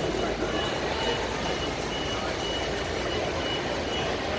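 An electronic beeper sounding a short high beep about twice a second, steadily, over the constant rumble and hum of traffic at a terminal curb.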